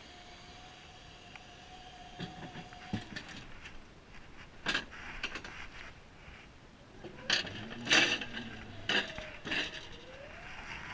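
A series of sharp knocks and clatters, several in quick succession, the loudest about eight seconds in, over a faint steady tone that fades out about three seconds in.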